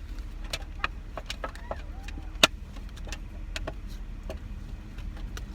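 Car idling, heard from inside the cabin as a steady low hum, with scattered small clicks and rattles and one sharp click about two and a half seconds in.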